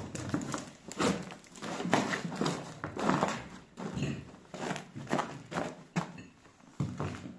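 Footsteps on a debris-strewn floor, roughly one step a second.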